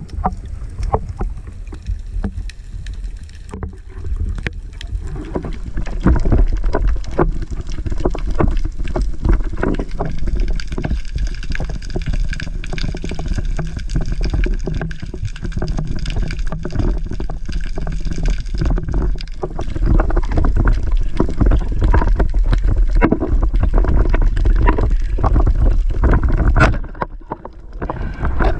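Underwater sound through an action camera's housing as a spearfisher swims: a low rush of water with a dense, irregular crackle of clicks throughout. It grows louder about six seconds in and dips briefly near the end.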